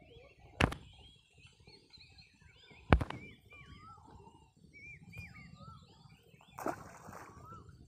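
Small birds chirping and calling over a quiet rural riverbank. Two sharp knocks cut through, about half a second in and about three seconds in, and a brief rushing hiss comes near the end.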